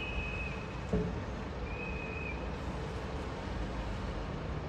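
Outdoor street noise: a steady rush, with two short, high, whistle-like tones and a single thump about a second in.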